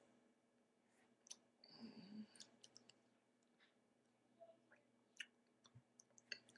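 Near silence broken by faint, scattered clicks and soft taps from a person signing, with a short breathy rustle about two seconds in.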